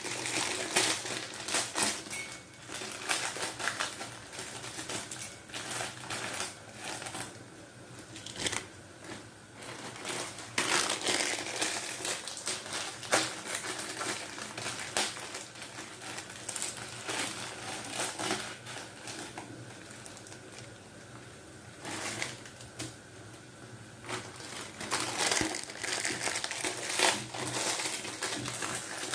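Plastic instant-noodle packaging crinkling and crackling as it is handled and opened, in irregular bursts.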